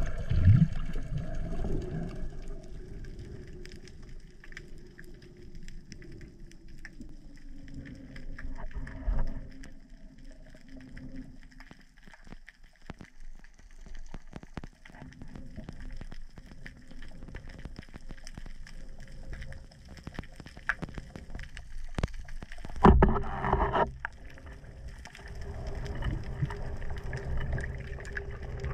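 Underwater sound picked up by a camera on a speargun during a freedive: a low murky rumble dotted with scattered crackling clicks. There is a louder rushing surge at the start and another about 23 seconds in, with a faint steady hum near the end.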